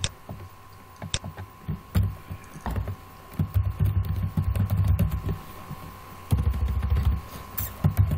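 Computer keyboard being typed on: a few sharp clicks, then a long run of dull low knocks, over a faint steady high tone.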